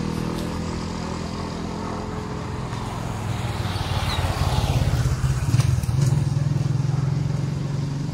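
A motorcycle tricycle with a sidecar drives past close by, its engine running steadily and growing louder as it passes, loudest about five seconds in.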